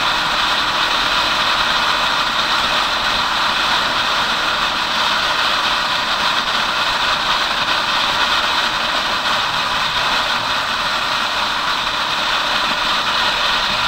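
Motorcycle running at a steady cruising speed, heard on board as an even engine drone under a steady rush of wind and road noise.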